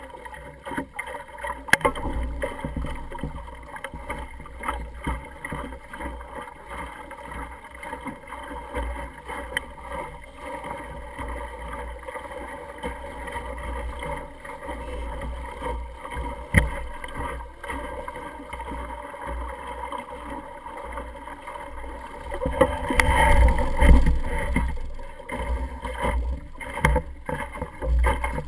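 A small sailing dinghy moving through choppy water, heard from a camera aboard: wind rumbling on the microphone, water washing against the hull, and scattered small knocks. The sound swells louder for a few seconds about three-quarters of the way through.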